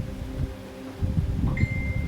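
Low, uneven rubbing and pressing of hands working over a back during a massage, with a faint steady hum underneath. One short, high ping rings out about one and a half seconds in and fades away.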